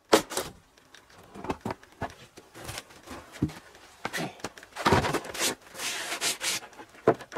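Freshly sawn cedar slab being lifted off the log and handled: irregular wood-on-wood scraping and rubbing with a few knocks, loudest at the very start and about five seconds in.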